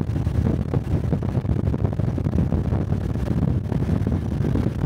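Honda 125 cc Cub motorcycle's single-cylinder engine and exhaust running steadily while riding, with wind buffeting the chest-mounted camera's microphone.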